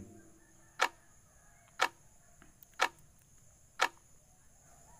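Countdown timer sound effect: four short clock-like ticks, one a second.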